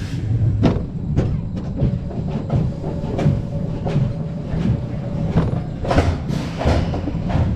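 Wildfire wooden roller coaster train rolling along the track, a steady low rumble with irregular clacks and knocks from the wheels and track.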